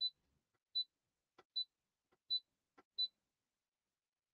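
Brother PE800 embroidery machine's operation panel beeping: five short, identical high beeps about three-quarters of a second apart, each one acknowledging a press of the arrow key that pages through the LCD screens.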